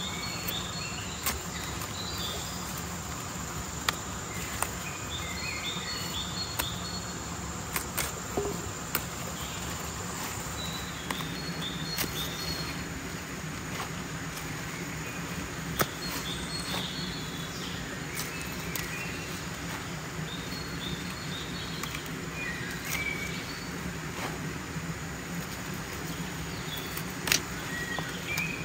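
Small birds calling in short repeated chirping phrases, with a steady high insect whine that stops about ten seconds in. Occasional sharp clicks and rustling come from leafy greens being cut at the stem with a knife and handled.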